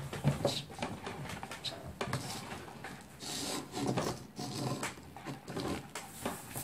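Irregular rubbing and scraping of hands and a stirring stick working a glue-and-baking-soda slime mixture in plastic bowls, with a plastic glitter shaker slid across paper on the tabletop and small knocks.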